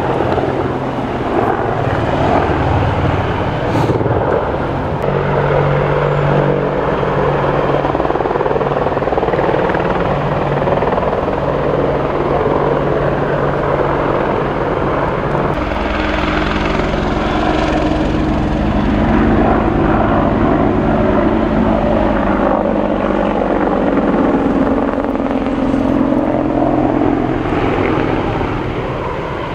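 AH-64 Apache attack helicopter flying a display, its rotor and engines making a continuous pitched drone. The drone turns deeper and fuller about halfway through and eases off near the end.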